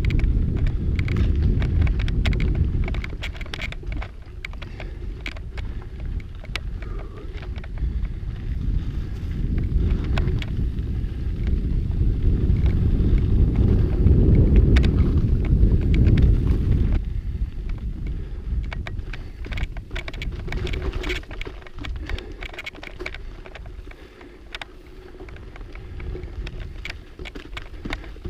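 Mountain bike riding on a dirt trail: wind buffeting the microphone over a low rumble of tyres, with scattered clicks and rattles from the bike and loose ground. The rumble swells around the middle and eases off about seventeen seconds in.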